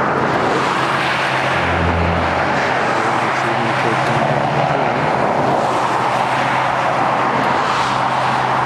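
Steady engine and road noise of a car being driven, with a low engine hum under a dense rushing noise.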